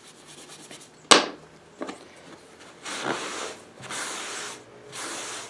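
A sharp knock about a second in, then a run of four even scrubbing strokes, each lasting under a second, as a wet brush and rag are worked over the wood of a thin burned bowl to wash out salt.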